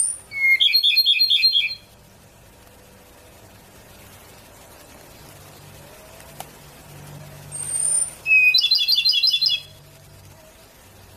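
Ryukyu robin singing two phrases, each a thin high note followed by a rapid trill of about five notes a second, one at the start and another about eight seconds in.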